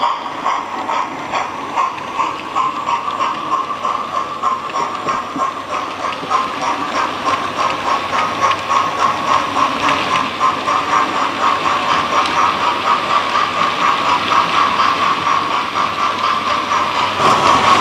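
OO gauge model train running past, its wheels making a rapid clicking over the track joints above a steady whirring hum, getting somewhat louder over the second half.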